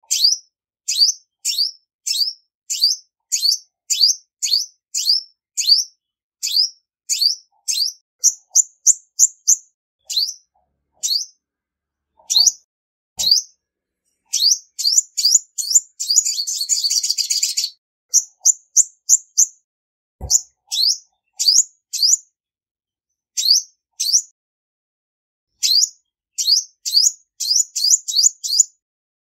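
Female olive-backed sunbird calling: a run of short, high, sharp chirps, about one or two a second, with a brief fast buzzy trill about halfway through.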